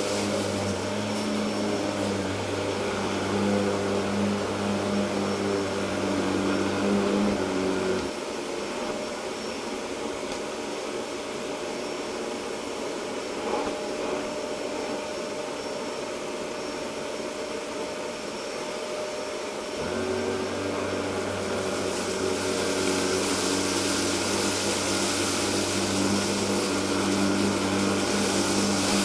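Electrolux UltraPerformer canister vacuum with a Miele SEB 216-3 powerhead running steadily over low-pile carpet strewn with rice and cat litter, an even rushing hiss over a low hum. The low hum drops out about 8 seconds in and returns about 20 seconds in, and from about 22 seconds the airflow hiss grows louder and brighter.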